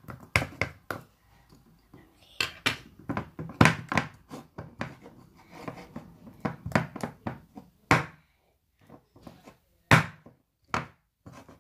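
A utensil knocking and scraping in a dish of sticky homemade glue-and-detergent slime, a string of irregular sharp clicks and taps, with a couple of louder knocks about eight and ten seconds in.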